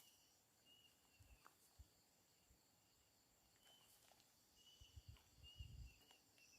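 Near silence: faint night ambience with several short, high chirps from small calling animals and a few soft low bumps of handling or footsteps.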